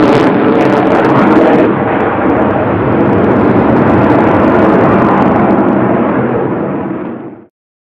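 Fighter jet engines heard in flight: a loud, steady noise that fades away near the end and then stops abruptly.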